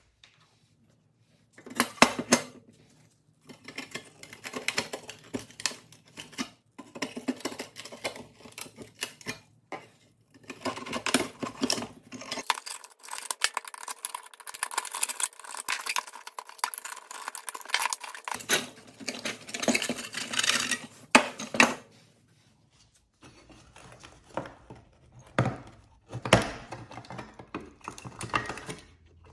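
Screwdriver scraping and prying at rusty pressed-steel toy truck parts, with metal clinks and scrapes in quick runs starting about two seconds in and a short pause near the end.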